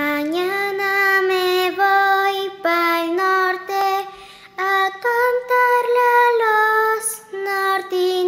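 Children singing in unison, a slow melody of held notes with brief breaks between phrases.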